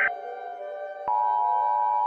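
Soft ambient background music, then about a second in the Emergency Alert System two-tone attention signal starts and holds: a steady, harsh dual-tone beep over the music.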